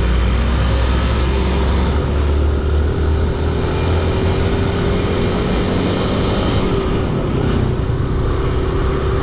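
Motorcycle running steadily while under way, a constant low engine drone with an even rush of road and wind noise over it.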